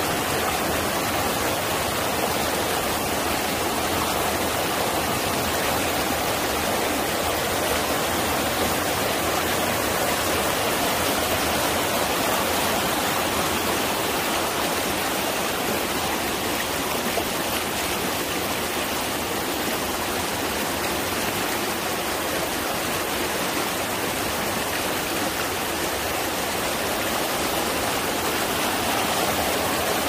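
Mountain stream rushing over boulders and splashing down small cascades: a steady, unbroken rush of water.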